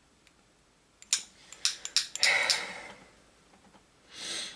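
Sharp metal clicks and a scraping rattle of hand tools and parts being handled on a carburetor during disassembly, with a short hiss near the end.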